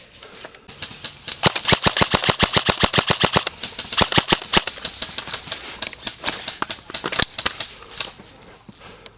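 Airsoft electric rifle firing: sharp rapid clicking shots in long bursts for a few seconds, then scattered single shots, easing off near the end.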